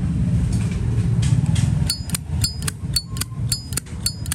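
Brass Zippo lighter's lid flicked open and snapped shut over and over, a quick series of sharp metallic clicks with a bright ring, showing off its lid sound. A low rumble of passing traffic comes before the clicking starts, about two seconds in.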